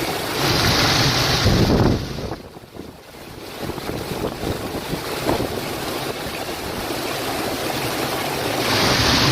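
Wind buffeting the microphone over a steady rushing noise, with a strong gust from about half a second in to two seconds and another near the end.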